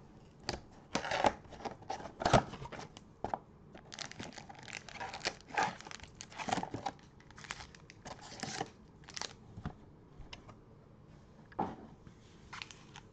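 Trading-card mega box being torn open: its wrapping and cardboard tear, loudest about two seconds in, then the foil card packs crinkle as they are pulled out and stacked.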